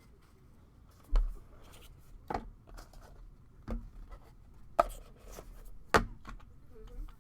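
Five sharp taps and knocks on a tabletop, about one a second, from trading cards and packs being handled and set down during a box break.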